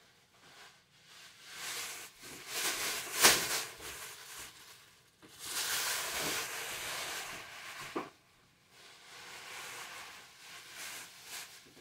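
Thin plastic garbage bag rustling as it is handled and opened, in three stretches of crinkling, with a sharp click about three seconds in and another about eight seconds in.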